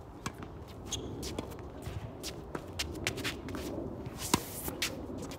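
Tennis shoes shuffling and stepping on a hard court during a rally, with a scatter of short sharp clicks. A single loud, sharp racket strike on the ball about four seconds in.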